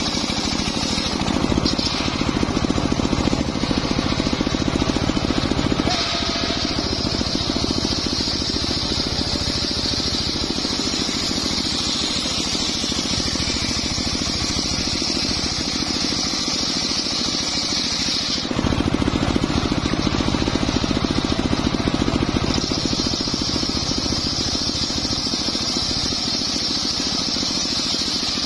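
Home-built circular sawmill ripping a large sengon (albizia) beam lengthwise: the big blade runs steadily through the wood. The sound switches abruptly a few times between a heavier low drone and a higher hissing whine.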